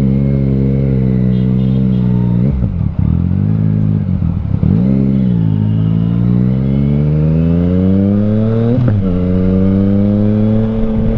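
Yamaha Tracer 900's 847 cc crossplane inline-three, breathing through an Akrapovic full-system exhaust, pulling hard under throttle. The engine note climbs and drops sharply at each gear change, a few times in quick succession near the start. The longest pull runs from about five to nine seconds in, before another shift.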